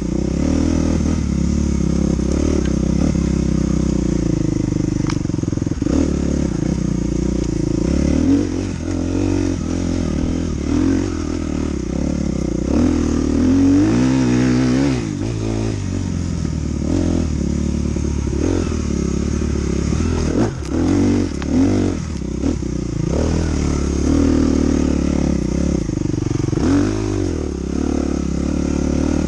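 Dirt bike engine running under changing throttle, its pitch rising and falling as it revs up and backs off several times, most clearly about halfway through and again near the end. Short knocks and clatter from the bike come in among the engine sound.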